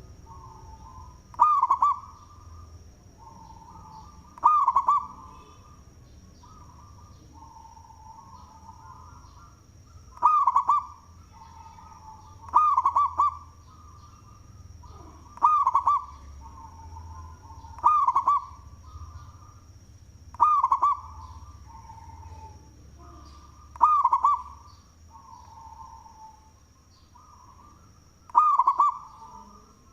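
Zebra dove (perkutut) cooing loudly and repeatedly: nine loud rolling coos, one every two to four seconds, with softer cooing between them. A thin steady high tone runs underneath.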